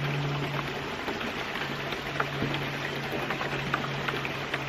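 Water running and splashing steadily, with scattered small drips and ticks over it and a low steady hum underneath.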